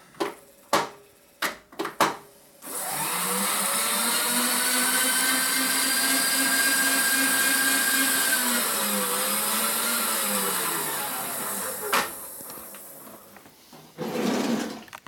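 A few sharp knocks, then a milling machine spindle motor switched on about three seconds in. It spins up to a steady whine, sags briefly and recovers, then winds down and coasts to a stop, with a knock near the end.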